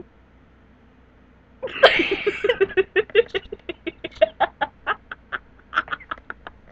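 A boy laughing uncontrollably. After about a second and a half of quiet, a loud outburst of laughter runs on as a rapid string of short, staccato ha's, several a second, with a few more near the end.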